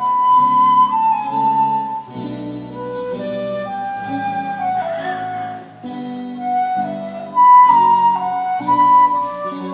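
Wooden transverse flute playing a slow Baroque adagio melody in long held notes, accompanied by guitars holding chords underneath.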